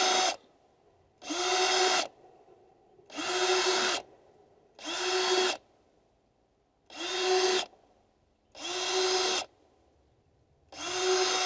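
Makita cordless drill with a 5/16-inch bit running in short, low-speed bursts as it bores holes through a leather-hard clay bowl. There are about six separate runs with quiet gaps between them, and each run rises briefly in pitch as the motor spins up.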